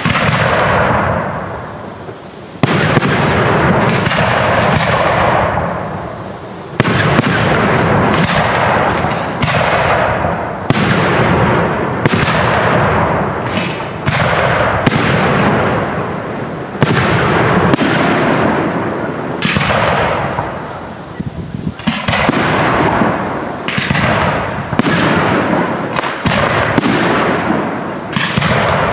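Aerial firework shells bursting one after another, a bang every second or two, each trailing off in a long echoing rumble, with a few short lulls between volleys.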